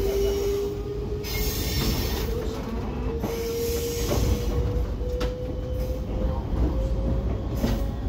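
Choshi Electric Railway train running along the line, with a steady low rumble from wheels and track and a whine from the motors and gears that rises slowly in pitch as it gathers speed. A few faint clicks come through from the wheels passing over the track.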